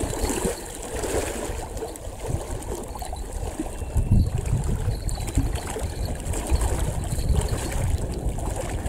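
Lake water splashing and trickling as a carp is scooped into a landing net and lifted out, over a steady low wind rumble on the microphone.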